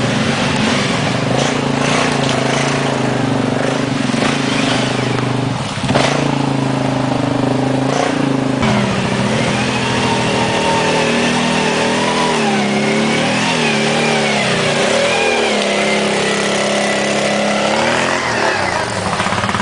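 ATV (quad bike) engine running steadily, then revving unevenly up and down from about nine seconds in as the quad is worked over snowy, muddy ground.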